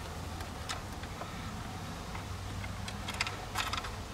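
Light clicks and scrapes of a hand screwdriver and screw as a small dash speaker is fastened in place, with a cluster of clicks about three seconds in, over a steady low hum.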